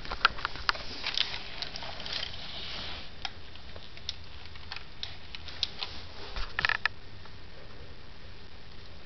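Sharp plastic clicks and clatter from a LEGO Mindstorms pistol mechanism: a run of separate clicks in the first second and a half, a soft hiss, then a quick cluster of clicks about two-thirds of the way through.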